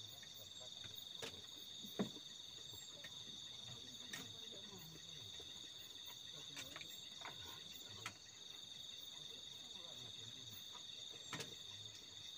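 Crickets and other night insects chirring in a steady, high, even drone, with a few soft clicks and taps scattered through.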